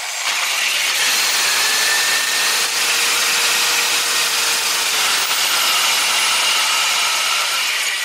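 Half-inch drill, not a hammer drill, boring through concrete block with a 1/2-inch carbide masonry bit: a steady grinding drone with a faint motor whine underneath.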